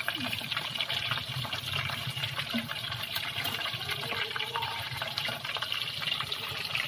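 Flour-coated chicken leg pieces deep-frying in hot oil in a kadhai: a steady sizzle with fine crackling from the bubbling oil.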